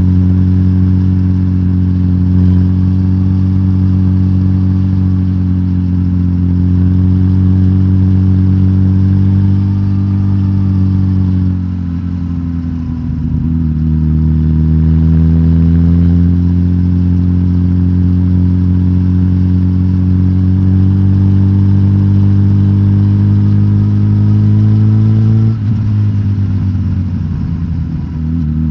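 Suzuki GSX-S1000GT's inline-four engine, decatted with the stock exhaust, running steadily under way. About twelve seconds in the engine note dips and climbs back, and about three seconds before the end it drops suddenly.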